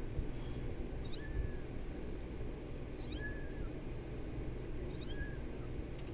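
Kitten meowing three times, about two seconds apart: short, high cries over a steady low background hum.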